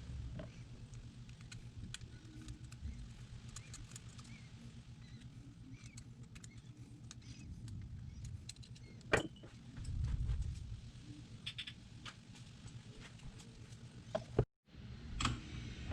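Light metallic clicks and taps of hand tools working on a motorcycle carburetor, with one sharper click about nine seconds in and a dull thump just after, over a steady low hum.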